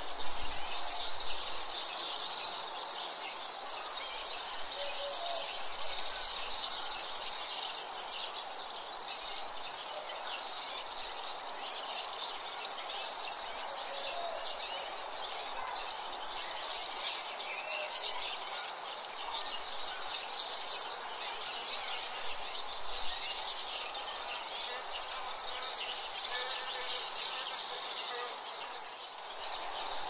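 Forest ambience: a steady high-pitched insect chorus, with scattered small bird chirps and calls throughout.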